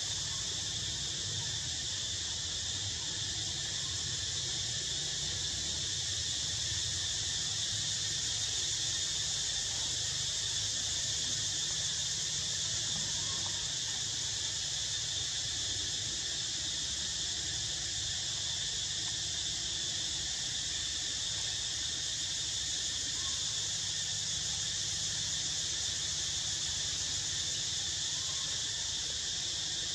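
Steady, high-pitched chorus of insects that does not let up, over a low rumble.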